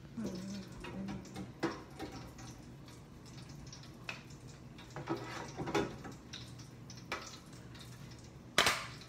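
Biscuit-dough donuts deep-frying in hot oil, a crackling sizzle with scattered small pops over a steady low hum. One sharp knock comes near the end.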